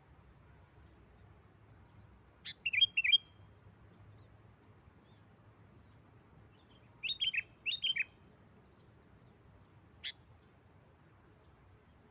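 Sooty-headed bulbul calling: a short phrase of quick notes about two and a half seconds in, two more phrases around seven to eight seconds, and a single short note near the end.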